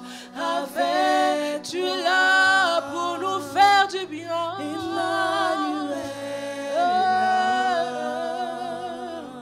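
Worship singing by voices with long, wavering held notes, over a low steady tone underneath.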